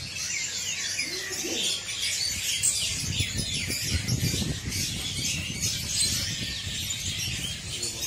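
Many caged songbirds chirping and singing over one another, a dense, continuous chorus of short high chirps and warbles.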